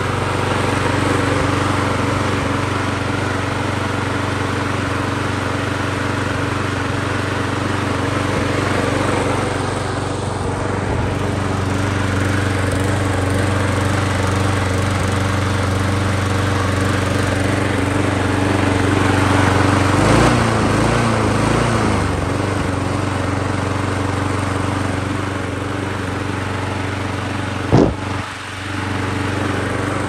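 Yard Machines push mower's Briggs & Stratton single-cylinder engine running steadily after a carburetor cleaning, sounding okay. Its speed wavers briefly about two-thirds of the way through, and a single sharp knock comes near the end.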